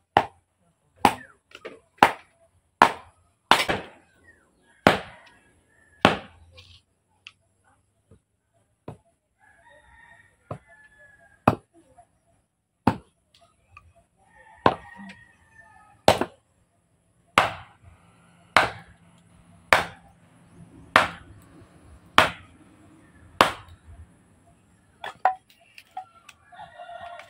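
Machete chopping firewood into kindling against a log: sharp wooden chops about one a second, with a pause of a few seconds near the middle. Chickens cluck faintly between the strikes.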